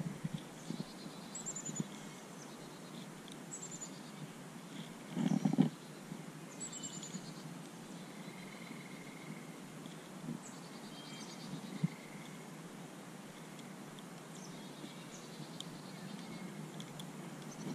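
Wild birds chirping and trilling, short high chirps that fall in pitch repeating every couple of seconds. A brief muffled bump, the loudest sound, comes about five seconds in.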